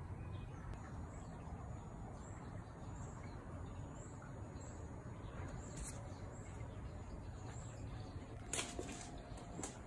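Quiet room tone: a low steady hum with faint high chirps repeating about once a second, and a few sharp clicks near the end.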